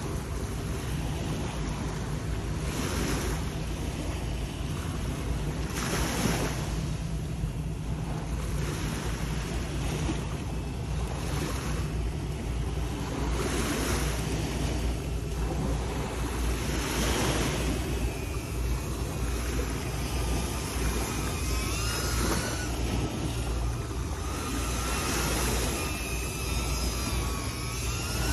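Sea surf washing against shore rocks, surging every few seconds, over a steady low rumble of wind on the microphone. A faint wavering whine comes in over the second half.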